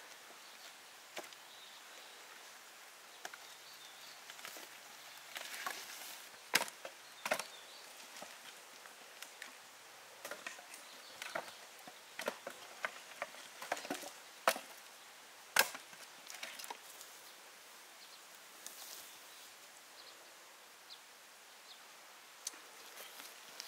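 Irregular sharp knocks of chopping, a few loud strikes among quieter taps, spaced unevenly about a second or more apart.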